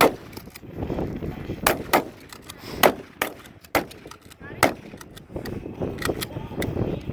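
Shotguns firing in an irregular run of sharp shots, several loud ones among fainter cracks, spread across the whole stretch.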